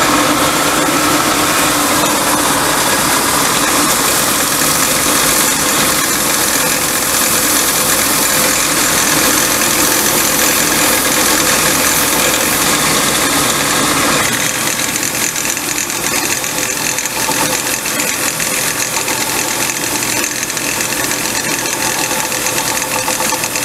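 Benchtop belt sander running while a wooden boat rib is pressed against the moving belt, grinding an angle onto the rib. About fourteen seconds in, the deeper part of the noise drops away and a thinner sanding sound goes on.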